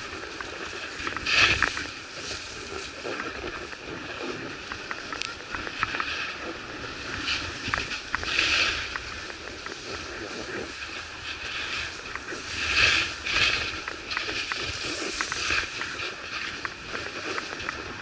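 Skis sliding and scraping over packed, tracked snow on a downhill run: a steady hiss with small clicks and three louder swooshes, near the start, around the middle and about two-thirds through.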